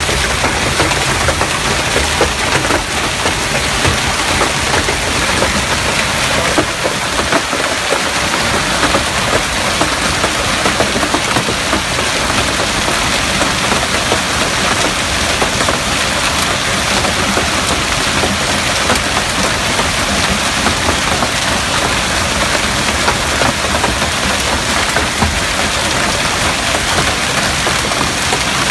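Heavy hailstorm: golf-ball to quarter-sized hailstones pelting the ground, plants and parked cars in a dense, steady clatter of countless small impacts.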